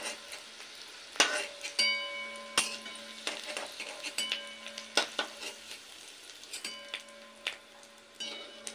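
Potato wedges sizzling in hot mustard oil in a metal kadai while a metal spatula scoops them out, clinking and scraping against the pan several times.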